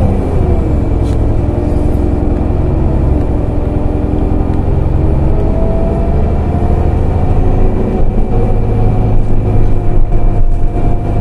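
Heuliez GX 127L city bus heard from inside the passenger cabin while driving: steady engine and road noise. The engine note falls about a second in, and a whine rises again around the middle.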